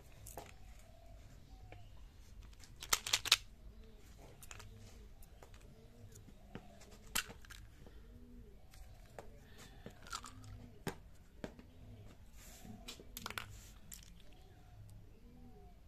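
Small plastic candy tub being handled and its flip-top lid opened: a quick cluster of loud plastic clicks and rattles about three seconds in, then scattered single clicks and light handling noise.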